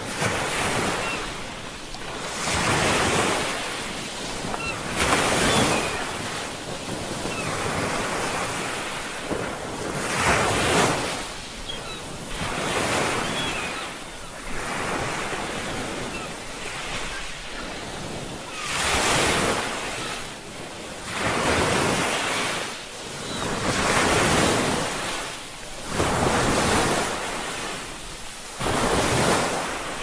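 Ocean surf breaking on a shore, the wash rising and falling in surges every two to three seconds, with a quieter lull midway.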